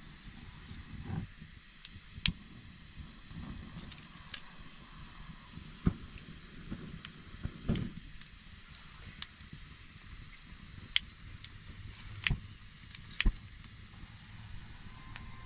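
Handheld lighter struck again and again to light a pile of dry leaves: about seven sharp clicks, one every second or two, with dry leaves rustling between them over a faint steady hiss.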